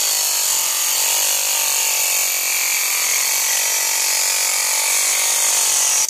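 Homemade mini electric grinder, a small laser-disc-player motor spinning a thin homemade cutting disc, cutting into a steel concrete nail. A steady, high-pitched grinding hiss rides over the motor's whine, then stops abruptly at the end as the nail is cut through.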